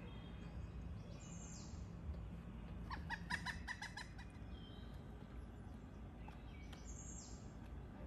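Pileated woodpecker calling: a quick series of about eight even, clipped notes, roughly seven a second, lasting about a second, about three seconds in.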